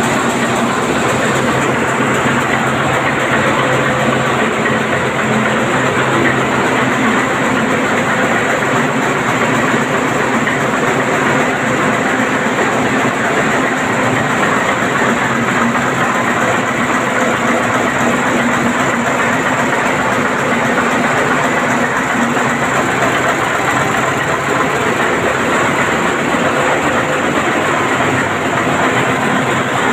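Large marine diesel engine running in a ship's engine room, loud and steady with a constant hum under dense machinery noise.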